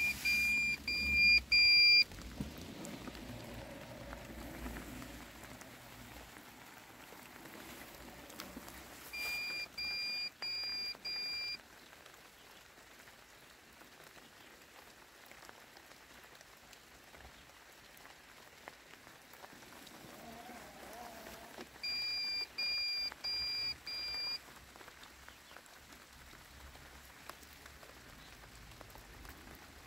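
Landxcape 790 robotic lawn mower beeping: three sets of four short, high beeps, the first loudest, over a light patter of rain.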